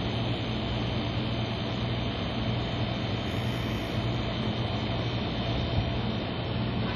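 A steady low hum with an even hiss over it, unchanging throughout, like nearby machinery or an electrical hum.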